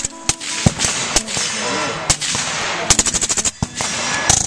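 Suppressed AR-style rifle with a titanium suppressor firing: a few single shots, then a quick burst of about eight shots just past the middle, then two more shots.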